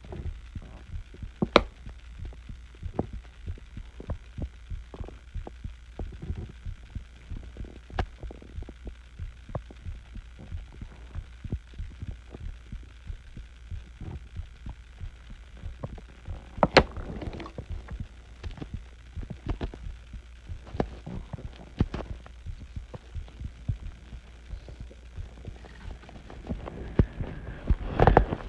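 A person's heartbeat, recorded close up: a steady, even run of soft low thumps, with a few sharper clicks and a short rush of noise near the end.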